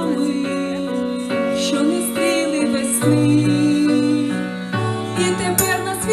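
Instrumental music led by a keyboard, playing sustained notes that change about once a second.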